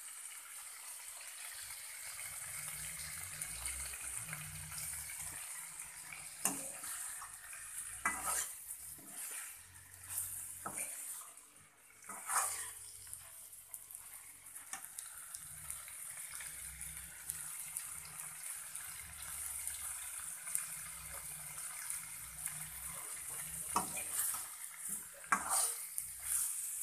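A metal spoon stirring and scraping aloo gobi in a steel karahi, clinking against the pan now and then, over a steady high sizzle.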